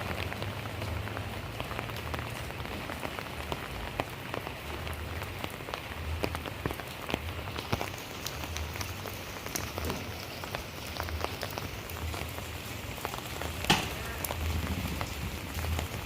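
Steady rain falling on the street and rooftops, with many close drops ticking on nearby surfaces and one sharper tick about three-quarters of the way through.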